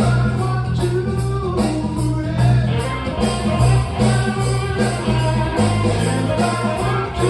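Band music: guitar over a steady, regularly pulsing bass beat.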